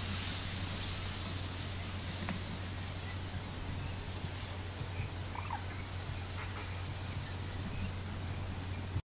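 Steady outdoor background: a low hum under a hiss, with a thin high whine that comes and goes. A few faint short chirps come about halfway through, and all of it cuts off suddenly near the end.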